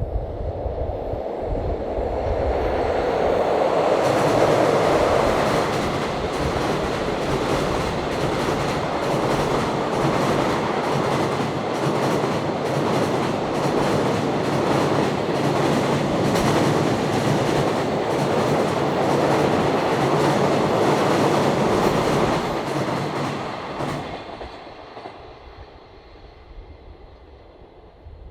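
A train passing close by, its wheels clattering over the rail joints in a steady run of clicks; the noise falls away about 24 seconds in as the train moves off.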